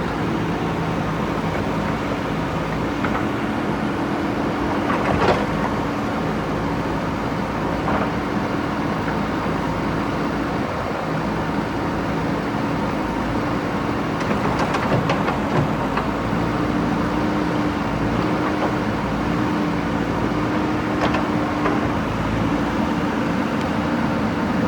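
JCB backhoe loader's diesel engine running steadily, with a few sharp knocks and clanks scattered through.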